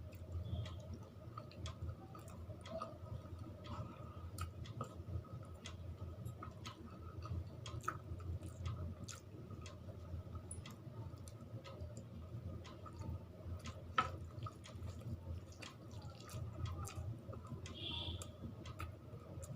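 A person chewing soft food such as rice and curry close to the microphone, with many small wet smacks and clicks of the mouth, one sharper click about two-thirds of the way through.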